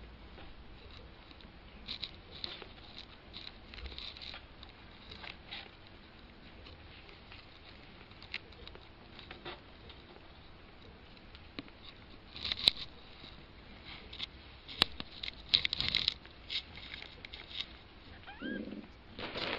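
Two-week-old kittens scrabbling and tumbling on carpet close to the microphone: scattered scratching and scuffling of small claws and fur, with a thicker run of sharp clicks about two-thirds of the way through.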